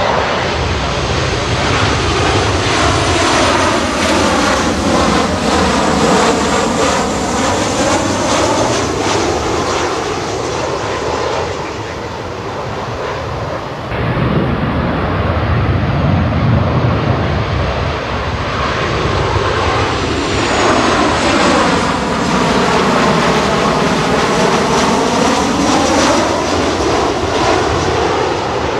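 Turbofan engines of Boeing 737 airliners on approach passing low overhead: a steady jet-engine noise with the swirling, sweeping phasing of a flyover. It breaks off abruptly about halfway through, and a second 737 comes over with another sweep near the end.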